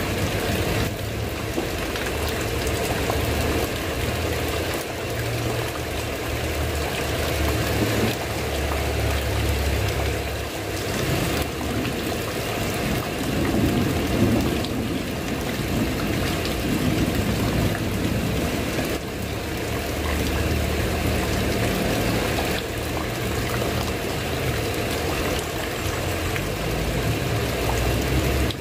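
Steady heavy rain on a tiled roof, with water pouring and trickling. A low rumble swells and fades underneath.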